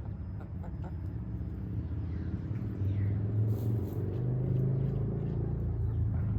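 A low, uneven rumble that runs steadily.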